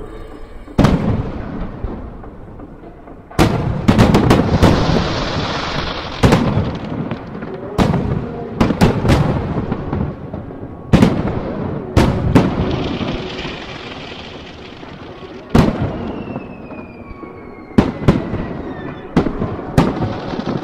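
Aerial fireworks display: more than a dozen sharp shell bursts come in quick, uneven succession, some in tight clusters, with crackling and hissing between them. A few falling whistle tones sound near the end.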